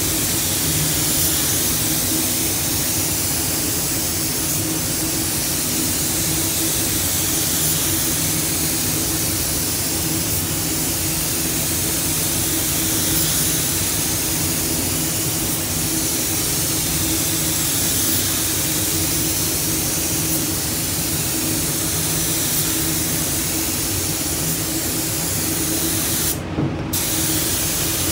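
Compressed-air paint spray gun hissing steadily over a steady hum of the spray booth. The hiss cuts out for a moment near the end.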